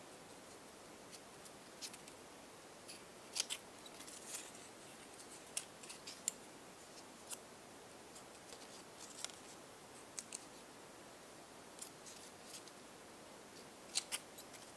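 Small scissors snipping narrow paper strips: a scattered series of faint, sharp snips, with quiet paper handling between them.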